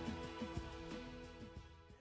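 Background music with sustained tones and a steady beat of low thumps, about two a second, fading out.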